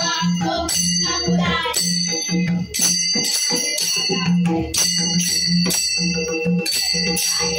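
Warkari bhajan music: small hand cymbals (taal) clash and ring in a steady rhythm over regular pakhawaj drum strokes, with women's voices singing in parts.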